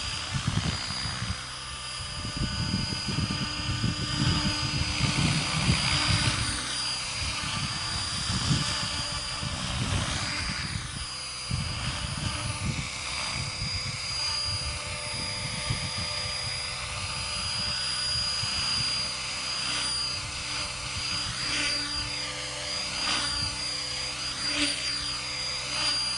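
Mikado Logo 500 3D electric RC helicopter flying low, its rotor and drive giving a steady high whine. The pitch sweeps up and down as it moves and turns, most clearly in the last few seconds. A gusty low rumble runs through the first half.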